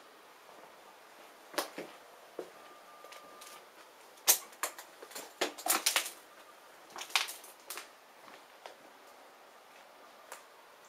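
Footsteps crunching over debris and fallen plaster on a littered floor: irregular sharp crackles and crunches, busiest in the middle.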